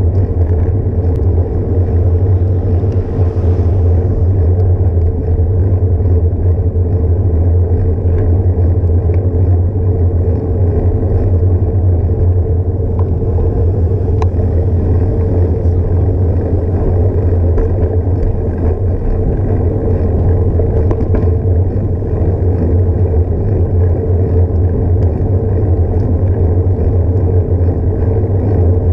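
Steady wind rumble on a moving bicycle-mounted action camera's microphone, with road noise from the ride. The sound is deep and continuous, with a faint steady hum higher up.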